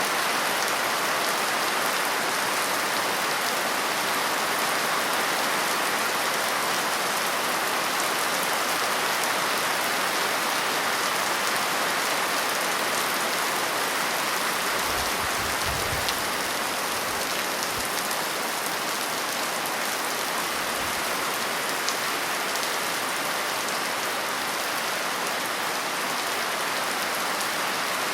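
Steady, heavy rain falling on a surface, a dense even hiss of drops, with a few brief low rumbles about halfway through.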